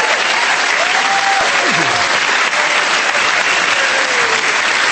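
A live audience applauding steadily, with a few voices calling out over the clapping.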